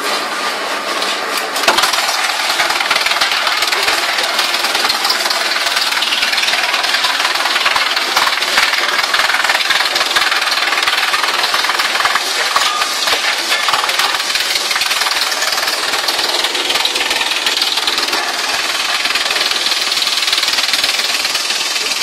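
Industrial wood chipper rated 5–8 t/h running and chipping branches fed in on its conveyor: a loud, steady clatter of wood being cut, which grows louder about two seconds in.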